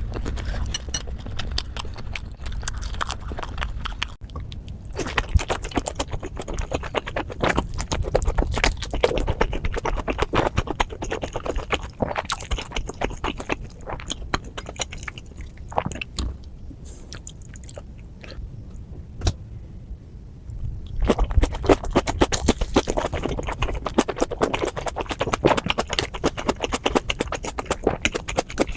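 Close-miked chewing and wet mouth smacking of someone eating steamed momos, in dense irregular clicks. It eases off for a few seconds past the middle, then grows louder again.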